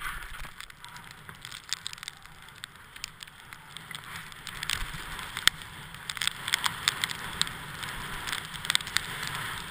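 Skis sliding and turning over packed snow: a steady hiss with many small crackles and clicks from the ski bases and edges, growing denser about halfway through.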